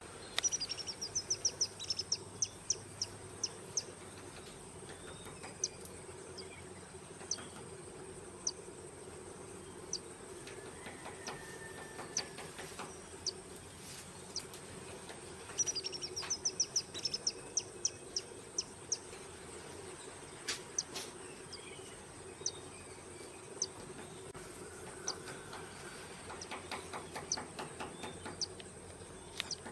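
Bird calling: a fast run of about ten sharp, high notes, repeated about every fifteen seconds, with scattered single notes in between. Under it are a steady high-pitched whine and a low hum.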